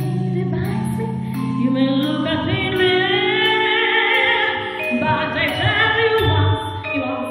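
A woman singing a musical-theatre song into a microphone, holding long notes with vibrato, over instrumental accompaniment. A sustained low note in the accompaniment stops about halfway through.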